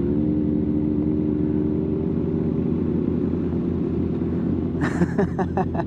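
Sport motorcycles' inline-four engines idling steadily while stopped. The engine note rises slightly at the start and then holds steady. About five seconds in there is a short run of sharp clicks.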